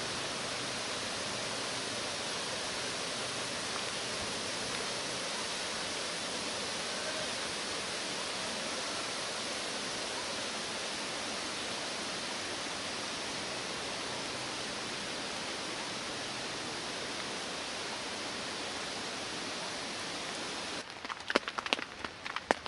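Steady hiss of rain falling over a forest. Near the end it gives way to sharp crackles and rustling of tent fabric being handled.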